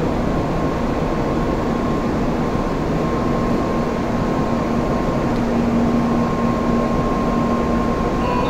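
Steady hum and rushing noise of a Shinkansen train standing at the platform, with a low steady drone and a fainter higher tone over an even hiss.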